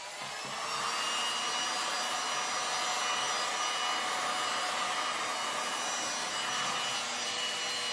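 Handheld electric heat gun blowing hot air, its fan noise building up over the first second and then running steadily until it stops near the end.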